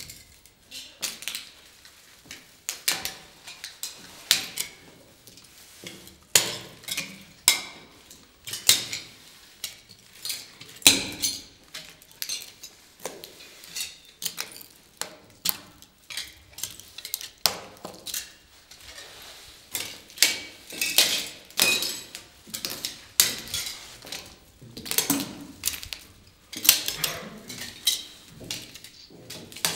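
High-heeled sandals stepping on loose mirror tiles, the glass clinking and clattering against the floor and each other under each step. The steps come in an irregular run, one cluster of clinks every second or two.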